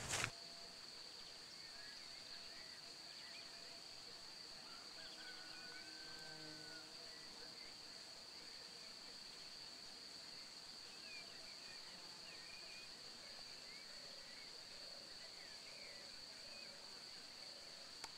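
Faint, steady high-pitched insect buzz over a grassy meadow, with a few scattered faint chirps.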